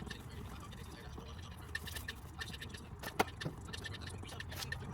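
Scattered light clicks and taps over a low steady hum, with one sharper click about three seconds in.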